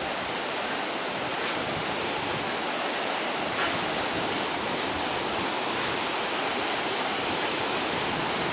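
Steady rushing of a mountain river flowing through the gorge below, an even noise with no breaks.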